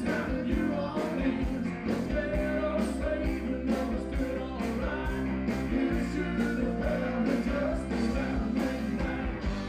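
Live band playing upbeat rock and roll, with a male singer, keyboard and a steady drum beat.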